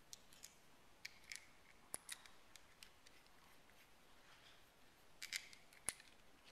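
Faint, scattered clicks and light clinks of small steel power-chuck parts handled together in the hands, with a sharper click about two seconds in and another near the end.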